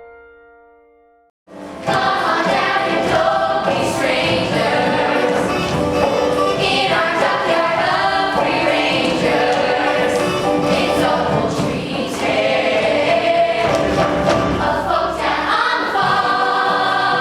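A piano note dies away, then after a second or so of silence a chorus of voices comes in singing a musical-theatre number with instrumental accompaniment.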